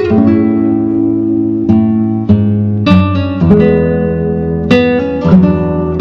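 Background music on guitar: plucked notes and chords that start sharply and ring out.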